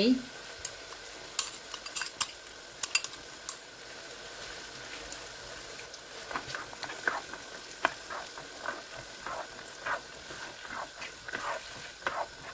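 Chickpea curry sizzling steadily in oil and masala in a frying pan as yogurt goes in. A spoon clicks a few times in the first few seconds. From about halfway on, a spoon stirs and scrapes through the chickpeas in regular strokes, frying the yogurt into the masala.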